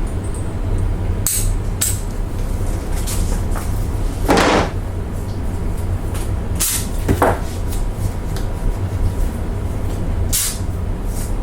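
Short clunks, knocks and scrapes of things being handled over a steady low hum, with the longest scrape about four seconds in and sharper knocks around seven seconds in.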